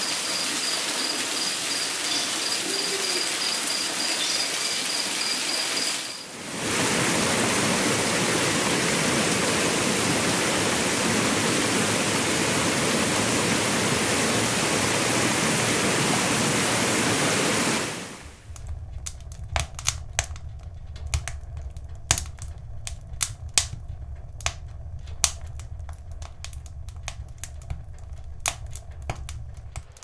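Waterfall pouring and splashing into a pool, a steady rushing noise that drops out briefly about six seconds in and comes back fuller. In the last third it gives way to a quieter low rumble with scattered sharp clicks.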